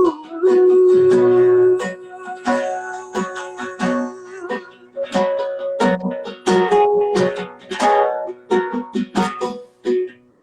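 Acoustic plucked string instrument playing an instrumental passage of a slow song, with chords and single notes picked in quick succession.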